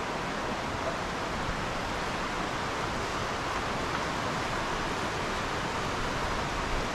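Steady rushing of river water, an even hiss with no break.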